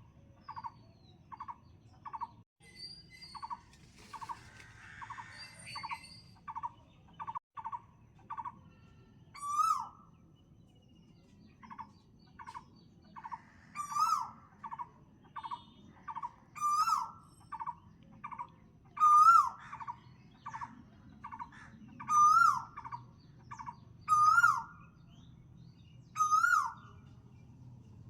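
Birds calling: a steady series of short, even toots at about two a second. From about a third of the way in, a louder sharp call that rises and then falls in pitch joins in every two to three seconds.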